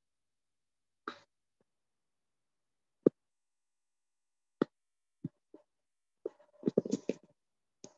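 Gated dead silence on an online-meeting audio line, broken by a few single sharp clicks and pops and a short cluster of faint muffled sounds near the end.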